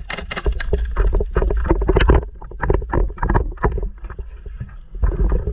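Airsoft gun firing in rapid, uneven bursts of shots that thin out about four seconds in, over a low rumble.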